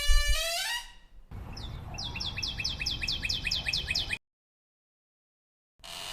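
A door creaking on its hinge with a rising pitch, ending in a heavy thud just after the start. Then a bird chirps rapidly, about four or five falling notes a second, over outdoor ambience for about three seconds. Near the end the door creak starts again.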